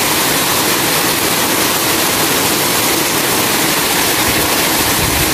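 Heavy rain pouring down in a steady, loud rush.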